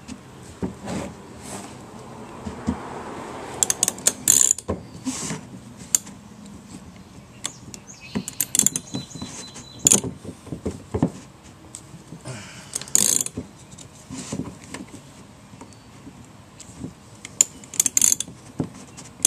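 Socket ratchet clicking in short bursts every few seconds, with sharp metal knocks, as it turns a fuel pump lock ring tight on the fuel tank.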